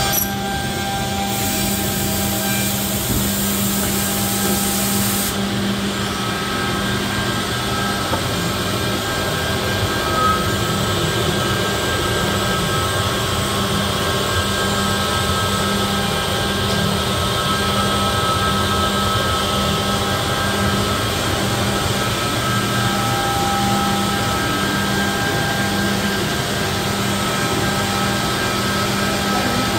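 Cehisa EM-Pro 460 edgebanding machine running steadily with its dust extraction blower, hum and whine holding level as a panel feeds through. A bright hiss sounds from about one to five seconds in.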